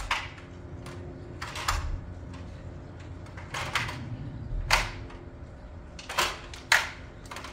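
Several sharp knocks or strikes at uneven intervals over a faint steady hum.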